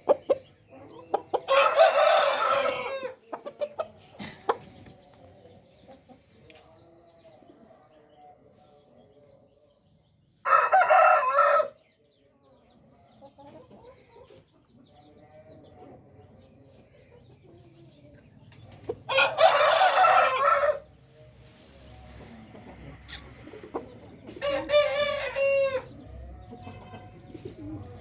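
Aseel rooster crowing four times, each crow lasting about one and a half seconds and spaced several seconds apart, with faint clucking in between.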